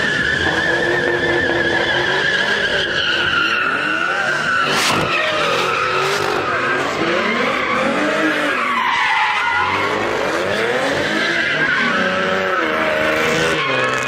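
Cars doing donuts: tyres squealing continuously against the pavement while the engines rev up and down.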